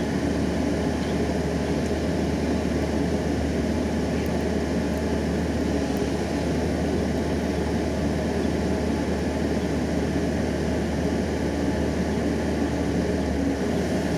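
Komatsu PC130-7 excavator's four-cylinder diesel engine running steadily under hydraulic load while the boom and grapple move, a machine suffering hydraulic low power with slow, weak combined movements.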